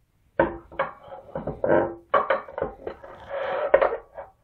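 Aluminium plates and rail bearing blocks knocking and clanking against the aluminium-extrusion gantry as the Z-axis assembly is fitted. It is a run of irregular metallic knocks, some ringing briefly, with a short scraping rasp near the end.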